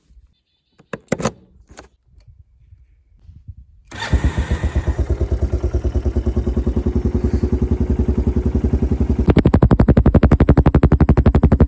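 A few light clicks, then an ATV engine is started with the handlebar electric-start button about four seconds in and runs with a steady rapid beat. About nine seconds in it speeds up and gets louder.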